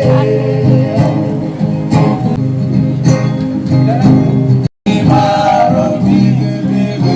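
Live music: voices singing with plucked guitar accompaniment. The sound cuts out completely for an instant a little past the middle.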